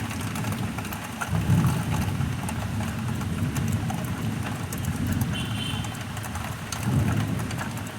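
Heavy monsoon rain pouring steadily, with a low rumble that swells several times.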